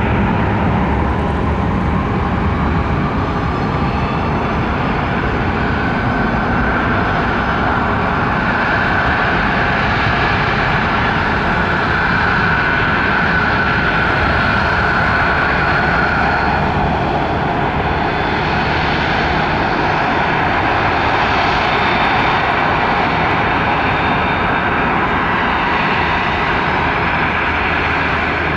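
Jet airliner engines running, a loud steady rush of noise with several high whining tones that drift slightly in pitch.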